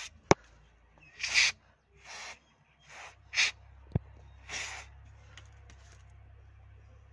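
Aerosol carburetor cleaner sprayed through its extension straw in about five short hisses into an engine wiring connector, to dissolve the carbon that weakens the ignition current and causes hard starting. A sharp click about a third of a second in is the loudest sound, with a smaller click at about four seconds, and a low steady hum comes in about halfway.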